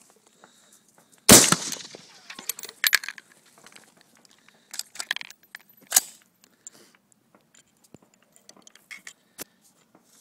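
A single rifle shot about a second in, from a Browning A-Bolt bolt-action rifle in .223 Remington, ringing briefly afterwards. It is followed by scattered metallic clicks and clacks as the bolt is worked and the rifle is reloaded.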